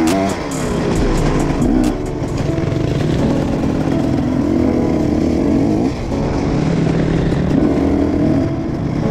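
Enduro dirt bike engine running under load on a forest trail, the revs rising and falling repeatedly as the throttle is worked, with brief drops about two and six seconds in.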